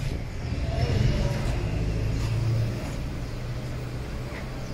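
Road traffic: motor vehicle engines running with a steady low hum.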